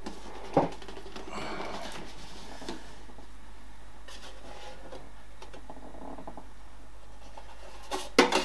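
Bread maker's baking pan and parts being handled: faint rubbing and scraping with a single knock about half a second in, then a few sharp knocks and clatters near the end.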